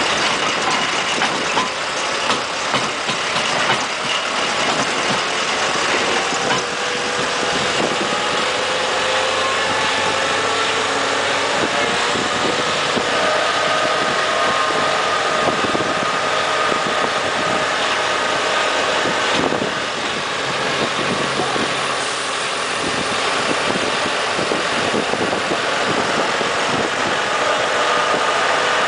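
Beach tram's road-train tractor engine running as it tows the carriages along the road, with a whine that rises in pitch as it picks up speed and then holds steady, over continuous road and wind noise.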